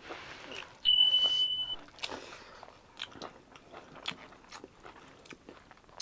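Close-up eating sounds: chewing, biting and small wet clicks of a mouthful of food. About a second in, a loud, steady high-pitched beep or whistle sounds for just under a second.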